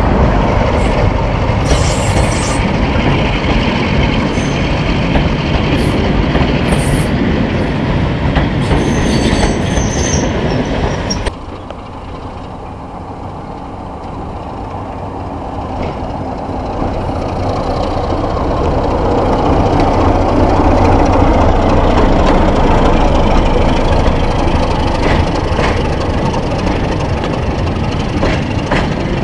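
Diesel locomotives hauling passenger trains past at close range: a loud rumble of engine and wheels with brief high-pitched wheel squeals. About eleven seconds in, the sound drops abruptly. From there a Class 33 diesel's engine and train build steadily louder as it approaches and runs past.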